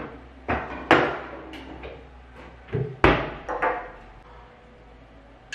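Sharp knocks and clatter of a kitchen cabinet being opened and shut and things being taken out of it, loudest about a second in and again about three seconds in.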